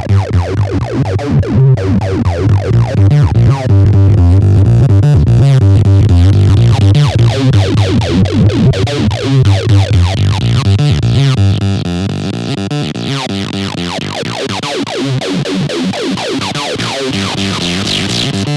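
Korg Monologue synthesizer playing a fast acid-style bass sequence of short repeating notes, distorted through a Boss guitar pedal. About twelve seconds in the low bass thins out and the sound turns brighter and more buzzy.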